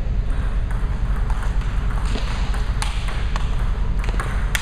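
Table tennis balls clicking off paddles and tables: irregular sharp ticks from play at several tables, over a low steady rumble. The sharpest click comes near the end.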